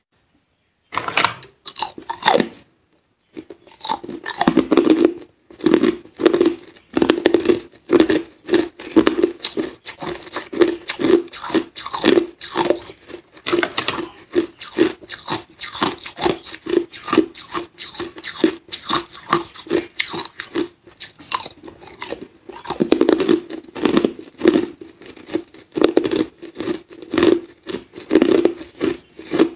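Hard clear ice cubes being bitten and chewed in the mouth: a dense run of sharp cracks and crunches in a steady chewing rhythm of about two a second, starting about a second in after a short silence.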